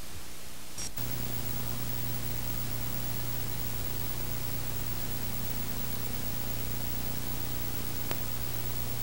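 Steady tape hiss from a video-tape transfer. About a second in, a low hum joins it with a click, and there is another faint click near the end.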